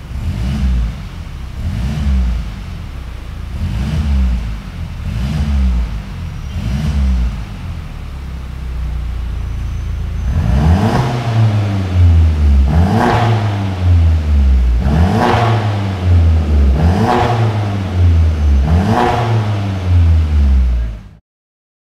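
Mercedes-Benz C300 (W205) 2.0-litre turbocharged four-cylinder revved in short blips at a standstill through an Armytrix valved exhaust. The first five blips come with the exhaust in its quieter 'neighbor mode'; from about halfway, six louder, rawer blips follow about every two seconds.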